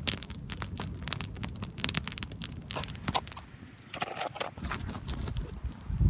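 Cooking over a campfire: dense, irregular crackling clicks for about three and a half seconds, then a softer hiss with a few clicks, and a low thump at the end.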